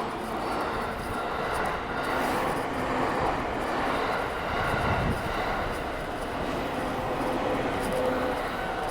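Passing trains: a steady rumble and rush of running trains, with a few faint whining tones held over it.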